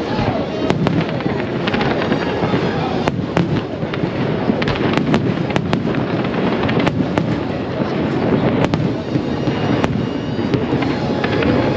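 Fireworks bursting: sharp bangs and crackles, many in quick succession, over a constant din.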